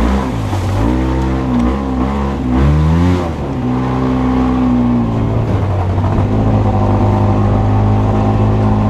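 Off-road vehicle's engine revving up and down several times in quick succession, then settling into a steady run under load for the rest of the time.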